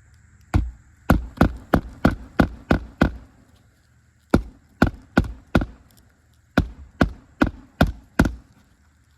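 Hammer striking roofing nails, driving them through an asphalt shingle into the roof deck during a shingle repair. Sharp blows about three a second in three runs: eight, then four, then five.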